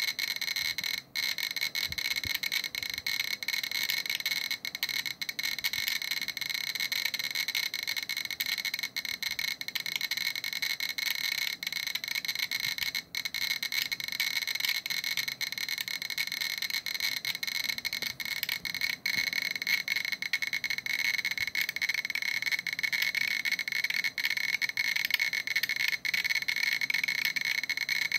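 GQ Geiger counter clicking rapidly, about forty clicks a second, so the clicks merge into a dense, high-pitched crackle. It is registering gamma radiation from a uranium-238 metal sample at around 2,400 to 2,500 counts per minute, and it grows a little louder in the last third as the count rate climbs.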